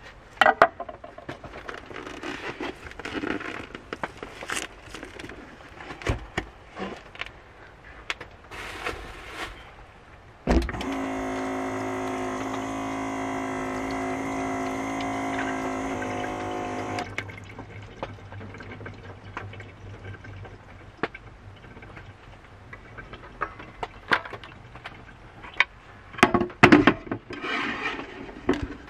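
Plastic bag crinkling and rustling as raw meat is unwrapped. About ten seconds in, an electric water-jug pump switches on with a steady motor hum and water runs from its spout over hands into a steel sink for about six seconds, then stops. Sharp knocks and handling noises follow near the end.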